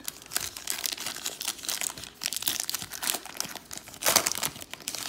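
Cellophane wrapper of a trading-card pack crinkling as it is worked and torn open by hand, in a stream of sharp crackles. The loudest crackle comes about four seconds in.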